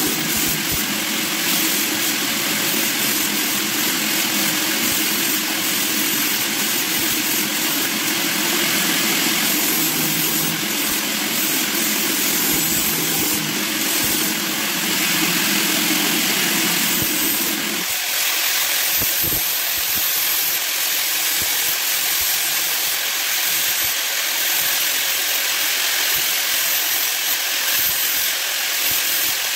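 Electric angle grinder running with a sanding disc while a small epoxy resin ring blank is held against it: a steady motor whine with a sanding hiss. About two-thirds of the way through, the low hum under the sound drops away.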